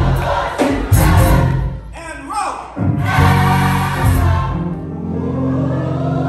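Gospel music: a choir singing over instrumental backing.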